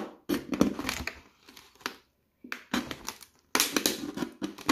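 Utility knife blade sawing through the thin wall of a PET plastic bottle, in a series of short irregular strokes with a brief pause about two seconds in.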